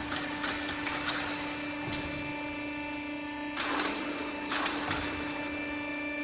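Automatic strapping machine running: a steady hum with quick mechanical clicks in the first second, then two short noisy bursts in quick succession a little past the middle.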